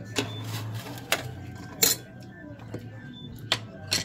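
A metal fork clinks and scrapes against a stainless steel saucepan of noodles, about six sharp clinks with the loudest about two seconds in.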